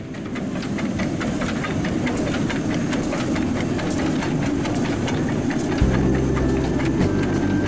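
A small 60 cm narrow-gauge steam locomotive working past, with steam hissing and a quick run of sharp exhaust beats.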